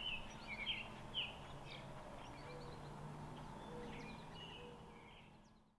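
Small birds chirping faintly, many short scattered calls and trills over a light background hiss, fading out near the end.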